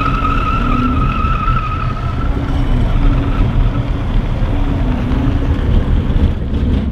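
Kei car drifting on PVC-ringed rear wheels, heard from inside the cabin: the small engine running under a heavy road rumble, with a high squeal from the sliding rear wheels that fades out about two seconds in.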